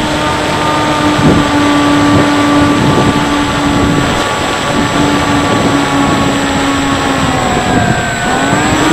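The Bixler 3 RC plane's electric motor and pusher propeller run at a steady, high-pitched whine over heavy wind rush in flight. Near the end the pitch sags and then rises back as the throttle is eased off and opened again during the landing approach.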